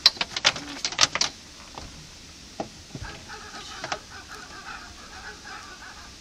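Sharp clicks and knocks in the first second or so, then birds calling in a quick chatter of repeated notes from about three seconds in.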